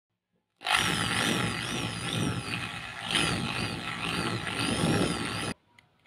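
Electric drill running with its bit boring out the rivet post of a Hot Wheels diecast car's metal base, its pitch wavering up and down. It starts about half a second in and cuts off suddenly near the end.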